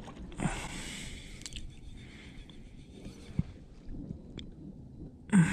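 Spinning rod and reel being handled in a kayak: a short hiss about half a second in, then scattered small clicks and knocks, and a louder thump near the end.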